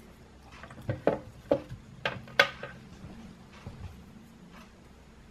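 DJI Mavic plastic charger and its cables being handled and set down on a table: a quick run of sharp clicks and knocks in the first half, the loudest about two and a half seconds in, over a faint low hum.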